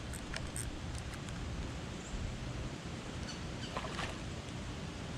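Steady hiss of rain, with a few faint ticks and a brief soft rustle about four seconds in.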